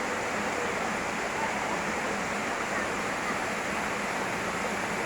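Waterfall water rushing and splashing in a steady, even roar.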